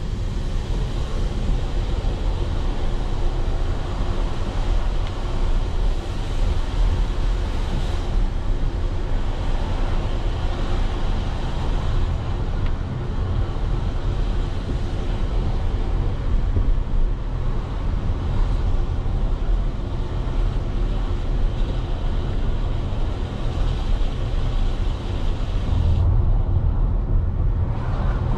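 Steady noise of a road vehicle on the move, with a heavy low rumble and a hiss above it. The hiss drops away about two seconds before the end.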